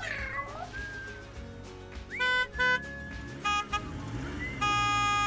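A kitten mewing in the first second, with background music. The music carries three short, loud tones and a longer held one near the end.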